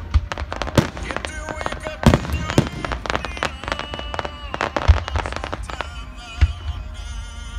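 Aerial fireworks shells bursting overhead: an uneven run of sharp bangs and crackles, the biggest about two and five seconds in, with music playing underneath.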